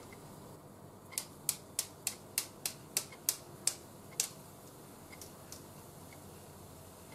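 A run of about eleven sharp clicks, about three a second, stopping after about three seconds: a stainless mesh strainer being tapped against the frying pan to knock off the clinging cabbage and shimeji.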